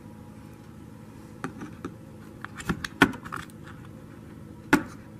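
A few short clicks and knocks as an 18650 lithium cell, capped with a small super magnet, is handled and pushed into a spring-loaded charger cell holder; the sharpest knock comes near the end.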